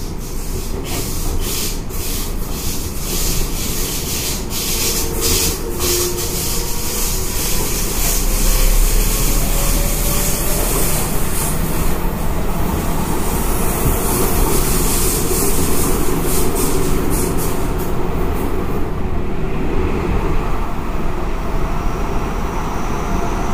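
Seibu 6000 series electric train running on the rails, with steady rolling rumble and repeated clicks of the wheels over rail joints. Faint gliding tones from its Hitachi GTO VVVF inverter and traction motors sit under the noise, and the sound builds a little over the first several seconds.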